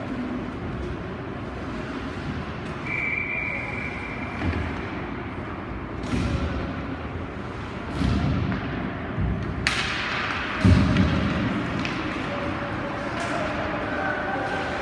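Ice hockey play in an arena: several sharp clacks of sticks and puck over steady rink noise, then a heavy thud against the boards about two-thirds of the way through.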